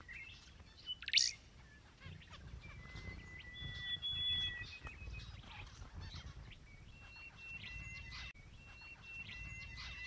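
Faint bird calls: short chirps, one sharper quick chirp about a second in, and several thin, steady whistled notes through the middle and latter part.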